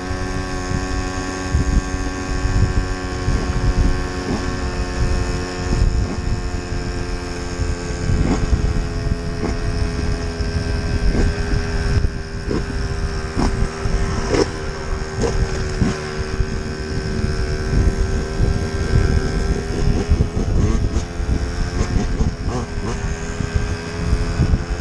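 Motorbike engine running at a steady speed while riding, with wind buffeting the microphone and occasional short knocks from bumps.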